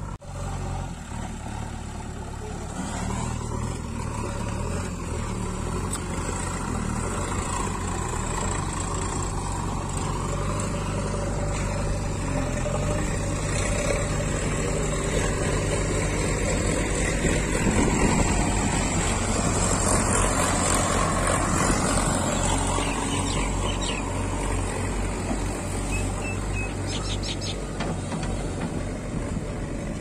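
Diesel engine of a JCB backhoe loader running steadily under load as it digs and pushes loose soil, growing a little louder around the middle.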